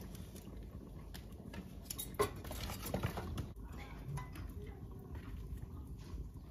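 Metal fire tongs clinking and scraping against sticks of firewood and the hearth stones as burning wood is shifted under a pot. There are scattered light knocks, with the sharpest click about two seconds in.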